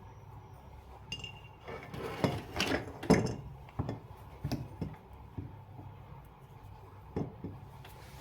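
Metal parts and tools being handled during ceiling fan repair: a burst of clattering and clinking about two seconds in, then a few separate sharp knocks, over a steady low hum.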